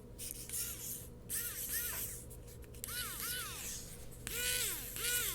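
Wowstick precision electric screwdriver's small motor whirring in a series of short bursts, each whine rising in pitch as it spins up and falling as it stops when the button is released. The bursts come about seven times, closer together and louder near the end, as it is run in both directions.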